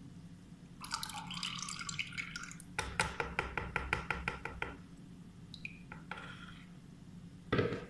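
Strained orange juice concentrate poured from a plastic jug into a plastic tub: a splashing pour, then the thinning stream breaking into a quick run of drips, about six a second. A short thump near the end.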